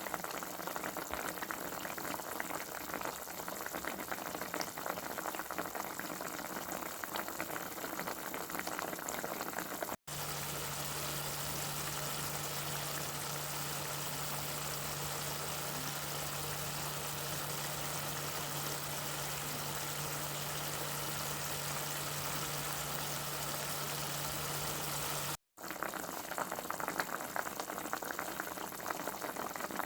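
Food cooking on a stove: a steady crackling hiss full of fine pops. Two brief dropouts break it, about ten seconds in and again near the end. Between them it turns to a smoother hiss with a steady low hum under it.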